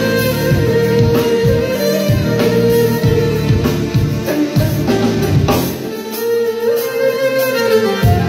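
Violin playing a melody of long held notes over a rhythmic backing of drums and bass; the low backing drops out for about two seconds near the end.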